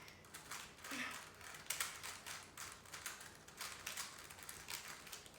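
Rubik's cubes being turned quickly during a speed-solve: an irregular run of light plastic clicks and clacks as the layers are twisted.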